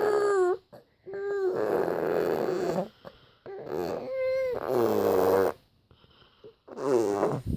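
A dog making a string of long, rough vocal noises, about four of them, each lasting a second or two with short pauses between and the pitch bending within each.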